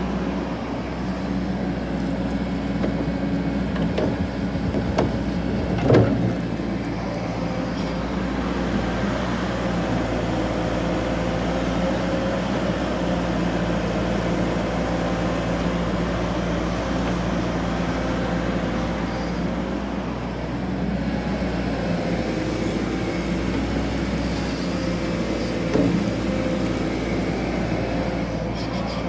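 Caterpillar 313F hydraulic excavator's diesel engine running steadily while the machine works its bucket through dirt. A few knocks from the bucket and arm come through, the loudest about six seconds in and another near the end.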